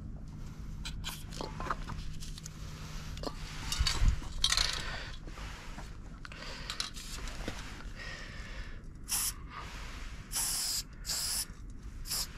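Aerosol spray paint can hissing in four short bursts in the last few seconds, through a cap the painter calls shitty. Before that, handling rustles and clicks of the cans, with a knock about four seconds in.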